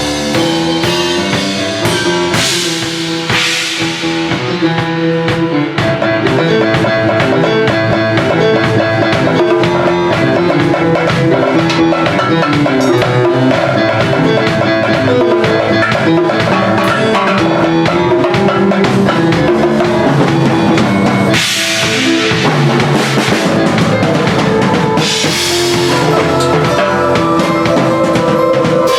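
A large drum kit with many cymbals playing along with piano chords and melody. Drums and snare hits run under the piano, with big cymbal crashes washing over it about three seconds in, past the twenty-second mark, and again a few seconds later.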